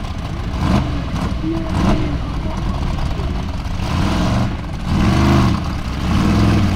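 Formula offroad buggy's engine revving in repeated surges under load as it climbs a steep dirt slope, pitch rising and falling with each burst of throttle. The strongest pushes come about four to five and a half seconds in.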